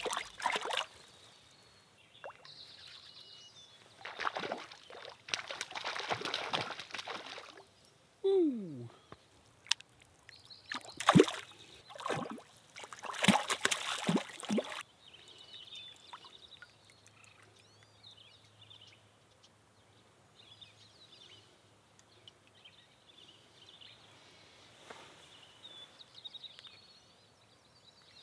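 Water splashing in three bouts as a hooked cutthroat trout thrashes at the surface of shallow lake water and is landed by hand. After the last bout the water goes quiet.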